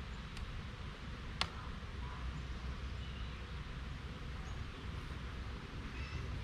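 Quiet outdoor background: a steady low rumble and hiss, with one sharp click about a second and a half in.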